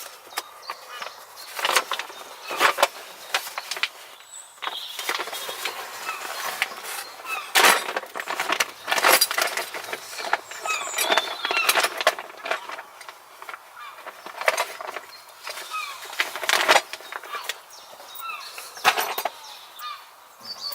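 Metal hand tools clinking and clattering as they are rummaged through, in irregular sharp clinks with pauses between, while birds chirp in the background.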